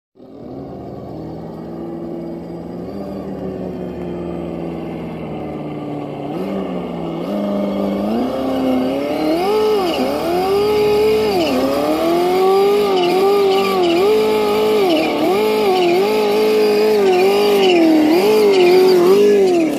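Simulated engine sound from an ESS-One sound module on an Axial SCX10 II RC crawler, stepping up in pitch about six to nine seconds in, then revving up and down over and over with the throttle as the truck climbs.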